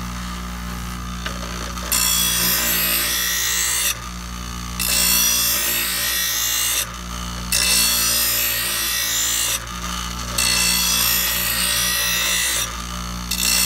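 Ryobi 6-inch bench grinder running with a steady motor hum while a steel mulching lawnmower blade is slid across the grinding wheel with light pressure to sharpen its cutting edge. The hiss of grinding starts about two seconds in and comes in four passes of about two seconds each, with a fifth starting near the end.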